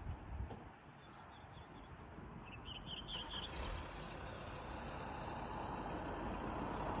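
A rushing noise that grows steadily louder, with a quick run of about five high bird chirps about three seconds in.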